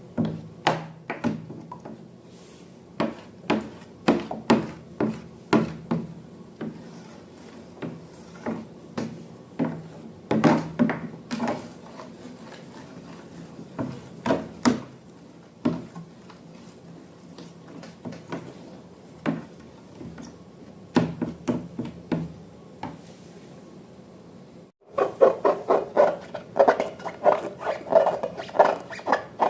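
Slime being squished and poked by hand, giving an irregular run of sticky clicks and pops. After a sudden break about 25 seconds in, the clicks come faster and louder.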